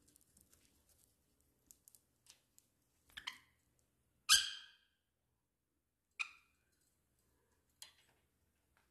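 Crystal chandelier drops clinking and ringing briefly, four separate times, the third the loudest, as lovebirds climb on the chandelier, with faint ticks of claws and beaks between.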